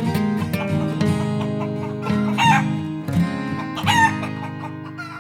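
Acoustic guitar music with sustained notes ringing out, and a chicken calling twice over it, about two and a half and four seconds in.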